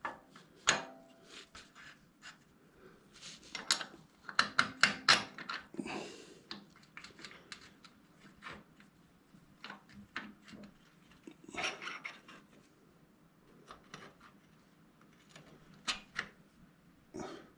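Metal bolts, parts and hand tools clinking and rattling as they are handled during refitting of a motorcycle's rear suspension linkage, in irregular bursts, busiest about four to six seconds in and again around twelve seconds.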